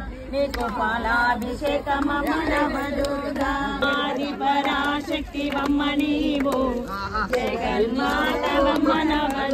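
A group of devotees singing a Telugu Bhavani devotional song to Durga together, several voices at once in a chanting style.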